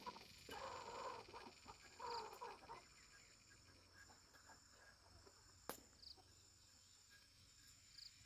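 Faint rural outdoor ambience with insects trilling steadily. Two short spells of soft sounds come about a second and two seconds in, and a single sharp click comes near six seconds.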